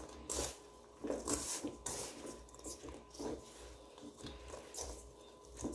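Hands kneading a soft tapioca-starch dough in a bowl: quiet, irregular squishing and crunching as the dough is pressed and pulled from the fingers.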